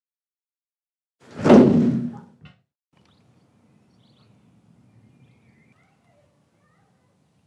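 A single loud, heavy thud about a second and a half in, its rush dying away over about a second. Faint low background noise follows.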